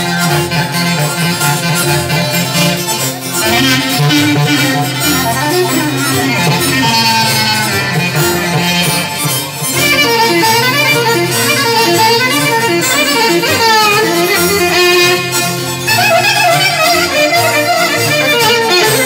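Live Greek folk dance music played through a PA with no singing: an ornamented clarinet melody over guitar and a steady low accompaniment.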